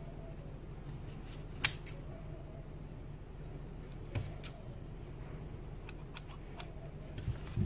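Metal tailor's scissors snipping: a scatter of short, sharp clicks, the loudest about one and a half seconds in and several smaller ones in the second half.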